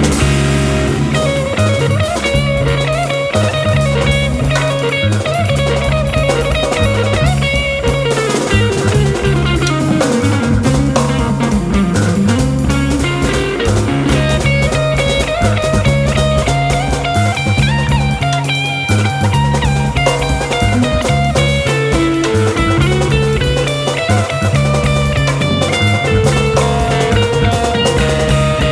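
Jazz-rock trio playing live: electric guitar lead lines over electric bass and drum kit, in a modal jazz and hard rock fusion. About ten seconds in, a long slide down in pitch bends back up.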